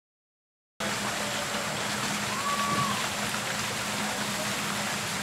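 Steady rushing noise of running water, cutting in under a second in after a moment of total silence, with one brief faint high note about halfway through.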